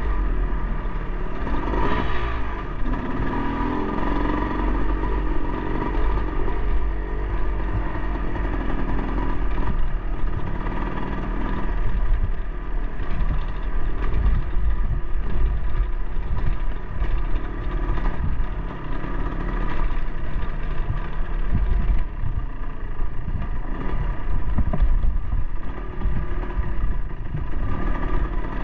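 Dirt bike engine running while riding a rough singletrack trail, the throttle rising and falling a little, with knocks and rattles from the bike over the bumps.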